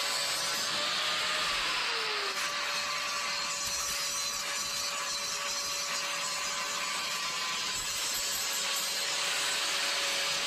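Angle grinder running with a steady whine, its disc grinding the metal rim of a manhole cover with a hiss. The motor's pitch sags briefly about two seconds in, then holds steady again.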